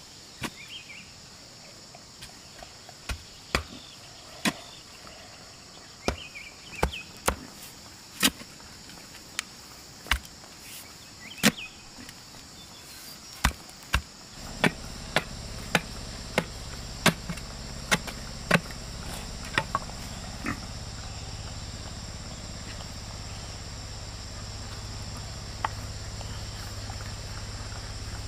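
A digging tool chopping into hard clay soil in irregular strikes, roughly one a second, thinning out after about twenty seconds. Insects shrill steadily underneath, and a low steady rumble comes in about halfway.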